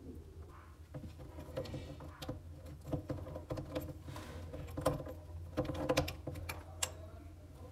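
Faint, scattered clicks and light taps of a braided faucet supply hose's nut being unscrewed by hand from a chrome angle stop valve, over a steady low hum.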